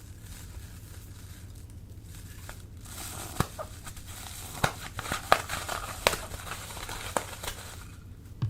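Plastic piping bags crinkling as slime is handled. From about three seconds in come a run of sharp crackles and clicks.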